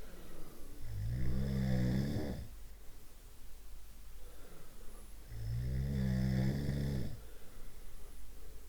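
A person snoring: two long, low-pitched snores about four seconds apart.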